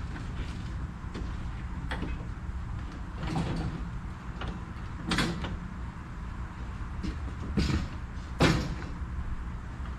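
A heavy 1948 Gilbarco gas pump being dragged and shifted about on a utility trailer: a handful of scrapes and knocks, the strongest near the end, over a steady low rumble.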